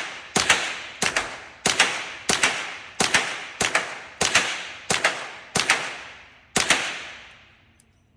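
A .22 rimfire gun firing a steady string of about ten shots, roughly one every two-thirds of a second, each shot trailing a short echo; the firing stops about a second and a half before the end.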